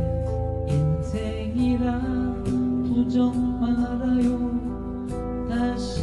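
Background song: a slow sung melody over acoustic guitar, with a long held note in the middle.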